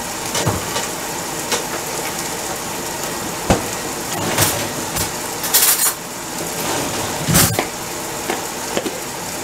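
Kitchen handling noises: a few scattered knocks and clicks, a short hiss about halfway through and a low thump near the end, as a mayonnaise jar is fetched and handled.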